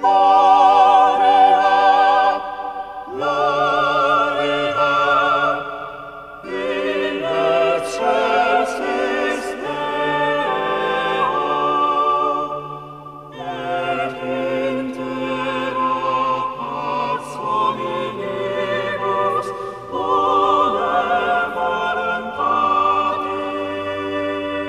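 Classical vocal music: operatic voices sing long, held notes with a strong vibrato, phrase after phrase, over a low sustained accompaniment.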